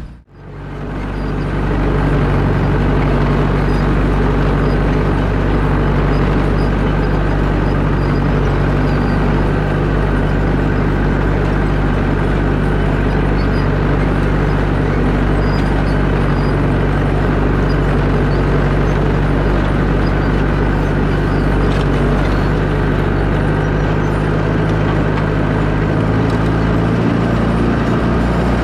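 Allis-Chalmers WD45 tractor engine running steadily under load while pulling a grain drill. It fades in over the first second or two, then holds an even pitch.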